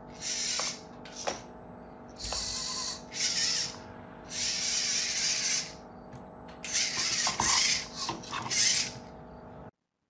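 VEX IQ clawbot's smart motors whirring in about six short bursts, with a few small clicks, as the robot drives up, grabs a cube with its claw and lifts it with its arm.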